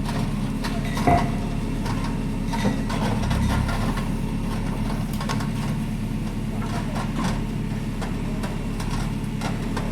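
Bobcat skid-steer loader's diesel engine running steadily, with scattered knocks from the machine, the sharpest about a second in.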